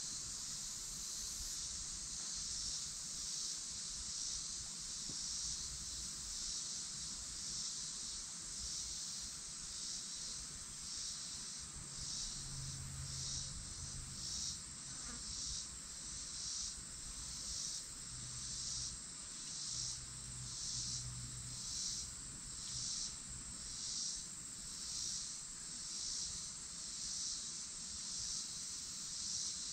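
A chorus of summer insects singing: a high, steady buzz that pulses evenly, about once a second. A low hum comes and goes twice in the middle.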